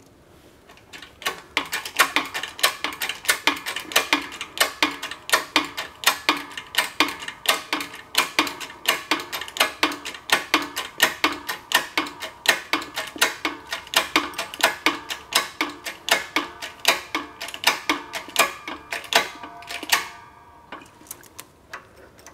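Hydraulic shop press pressing fifth gear onto a T5 five-speed transmission's mainshaft: a rapid, even clicking, about three or four clicks a second, each with a short metallic ring. The clicking stops about two seconds before the end.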